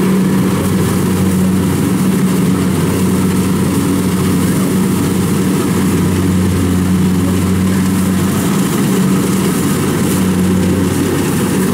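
Kubota DC-70 combine harvester's diesel engine running steadily under load while the machine cuts and threshes rice: a constant, even engine hum with no change in pace.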